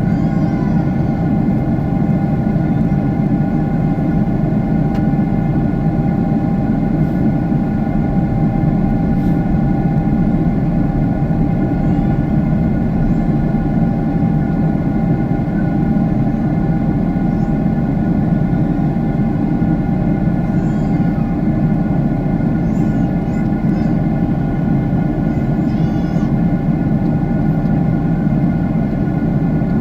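Jet airliner cabin noise in flight: the engines and airflow make a steady, loud rushing hum, with a few faint steady tones running through it.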